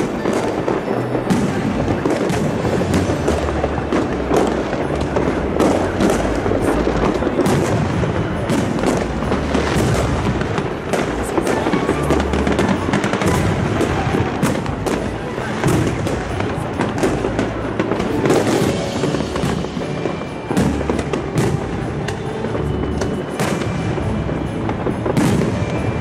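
Aerial fireworks going off in rapid, irregular succession: many sharp bangs and crackles one after another, over background music.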